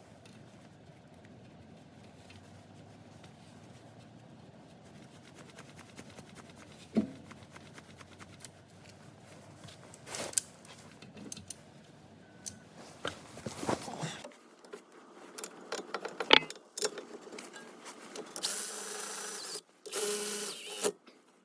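Metal clinks, knocks and rattles of hand tools and brake parts being handled during a brake job. Near the end come two short bursts of a steady hissing, whirring noise, each about a second long.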